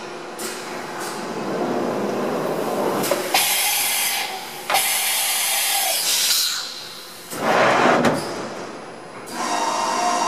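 Deckel Maho DMC 60 U CNC machining centre moving under power: its axis drives traverse in a series of separate whirring runs, each a second or two long and starting and stopping abruptly. There is a shorter, lower-pitched burst about eight seconds in, and a steady whine in the last run.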